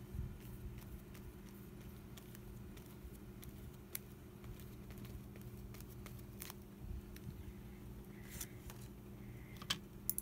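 Electric fan humming steadily, with faint scattered clicks and taps from a brush and paper being handled, a couple of them louder near the end.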